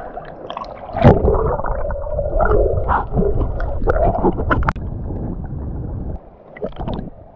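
A snorkeler duck-dives with an action camera: a splash about a second in, then muffled underwater sound of water rushing and bubbles gurgling as he swims, with a few sharp clicks.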